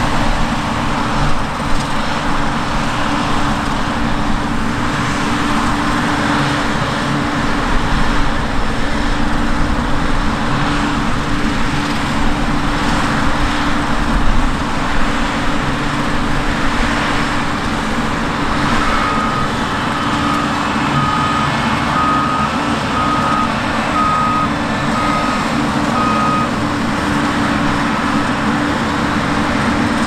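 New Holland CR combine harvesters running under load while harvesting rapeseed: a steady machine drone with a constant low hum. About two-thirds of the way in, a series of about eight short, evenly spaced electronic beeps sounds, roughly one a second.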